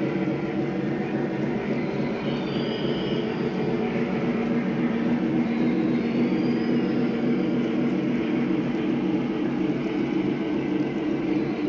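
Model circus train rolling past on the layout track: a steady rumble of wheels and motor, with a faint high-pitched glide about three times.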